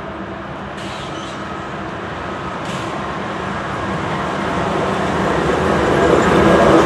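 Two GE diesel-electric locomotives, an AC4400CW and an ES44AC, leading a coal train as it approaches. Their engine sound grows steadily louder, with steady engine tones over the rumble of the train.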